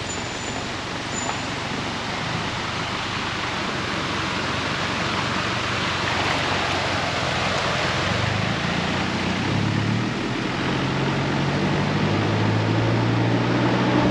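Pickup truck driving through a shallow stream ford, heard from a camera held out of the window: a steady rush of wind and running water, and from about eight seconds in the truck's engine note comes up louder, its pitch stepping up.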